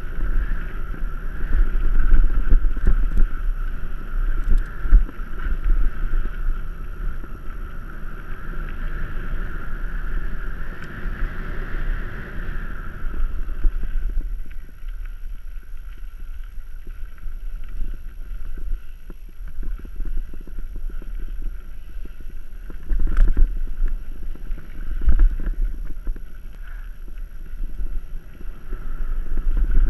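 Wind buffeting the camera microphone and tyres rumbling over a dirt singletrack on a mountain bike descent, with a steady high freehub buzz from the coasting rear hub that drops away about halfway and comes back near the end. A couple of sharp knocks from the bike hitting bumps come late on.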